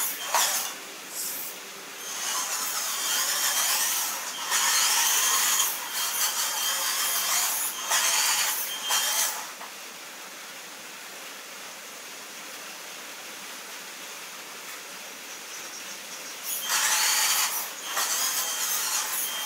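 Homemade RC tractor's electric drive motors and gearbox whirring like a small drill as it is driven across a wooden floor. There is one long run of a few seconds, a lull, then a second run near the end.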